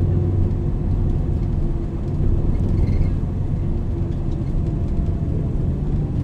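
MAN NL 323 city bus's diesel engine running with a steady low drone and road rumble.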